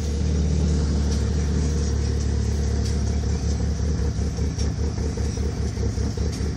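Newly installed turbocharged car engine idling steadily at about 1000 rpm on its first start-up, a low, even rumble heard from inside the cabin.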